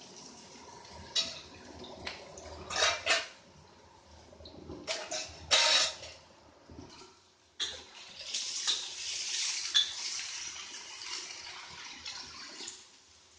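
Diced raw potatoes sizzling in hot oil in a wok, with several sharp knocks of a metal spatula against the wok. The sizzling swells again from about eight seconds in as the potatoes are stirred.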